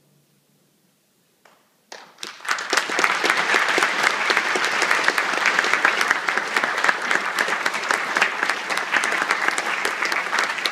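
Audience applause: after about two seconds of hush, clapping breaks out and quickly builds to a steady, dense ovation.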